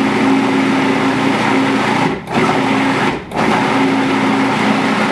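Cuisinart food processor motor running with a steady hum as it purées a thick avocado-and-cocoa pudding mixture. It is pulsed, stopping briefly twice, about two and about three seconds in, then running on.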